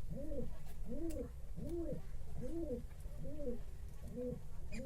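A bird cooing: a steady run of low notes, each rising and falling in pitch, a little more than one a second.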